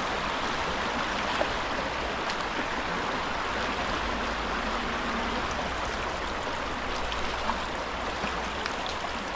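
Creek water running steadily, a continuous rushing sound.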